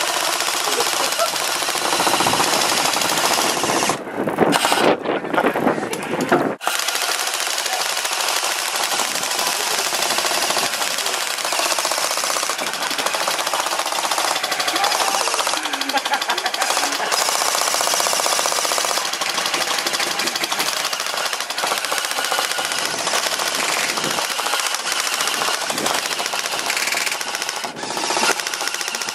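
Airsoft M60 support guns firing long, continuous full-auto bursts, a fast mechanical rattle with hardly a break.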